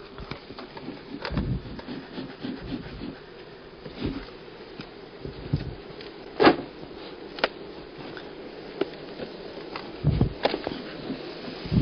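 Wooden beehive boxes being handled while a bee smoker is worked over them: scattered knocks and rubbing of wood on wood. The sharpest knock comes about six and a half seconds in, and there are heavier thumps near the end.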